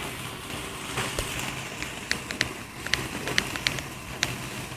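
Firework fountain hissing and crackling, with irregular sharp pops scattered over a steady spray of noise.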